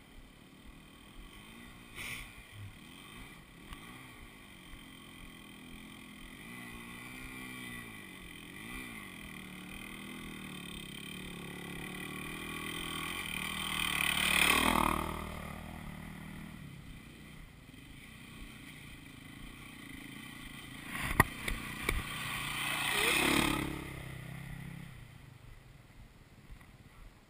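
Dirt bike engines revving as they come up a trail. One bike passes close by about halfway through and a second a little later, each swelling and dropping in pitch as it goes past. A single sharp click sounds just before the second pass.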